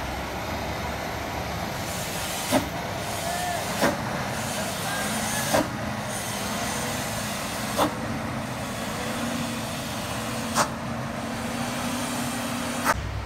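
Heavily loaded truck rolling backward down a steep grade over a steady engine and tyre rumble, its air brakes giving about six short, sharp hisses a couple of seconds apart as the driver checks the roll.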